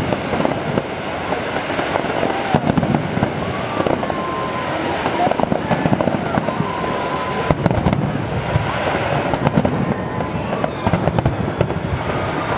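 Large aerial fireworks display: a dense, continuous barrage of bangs and crackles with no letup.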